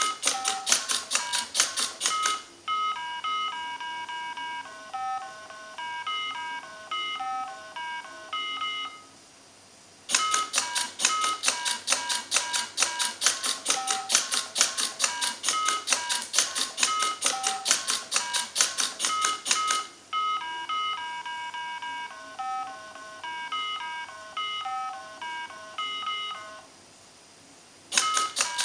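A mini Simon electronic memory game beeping out a sequence of its few fixed notes, alternating with stretches of rapid mechanical clicking, about eight clicks a second, from a button-pressing robot, with a game beep at each press. The pattern goes clicking, then beeps, a short pause, a long run of clicking, beeps again, and clicking near the end.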